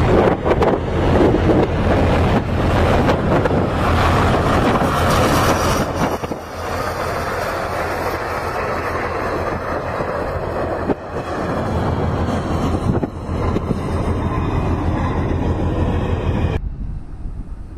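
A heavy vehicle on the move: a steady low rumble under loud rushing noise that cuts off abruptly near the end.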